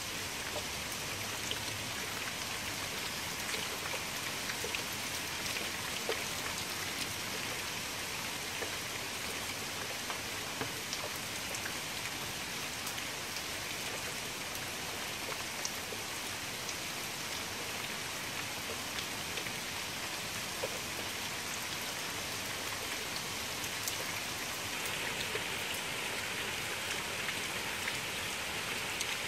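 Steady rain falling into standing water, with many separate drop ticks over a constant hiss.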